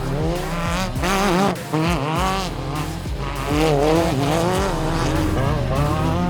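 Off-road race vehicle's engine revving hard, its pitch rising and falling again and again as the throttle comes on and off, over steady loud road and drivetrain noise.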